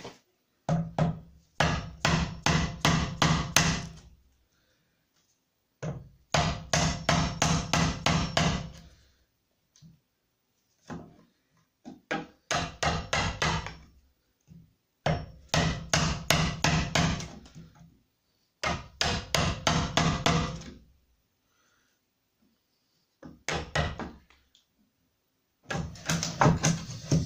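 A chisel tapped repeatedly with a hammer to chop a bored latch hole square in the edge of a tulip poplar door. The strikes come in quick runs of about four a second, several runs with short pauses between.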